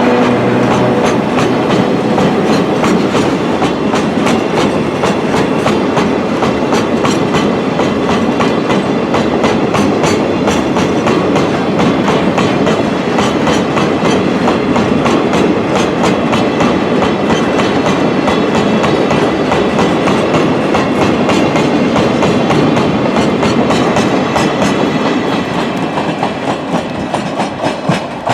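A Chichibu Railway freight train of Woki 100 hopper wagons rolls past, its wheels clicking steadily over the rail joints. The sound thins and drops away over the last few seconds as the end of the train goes by.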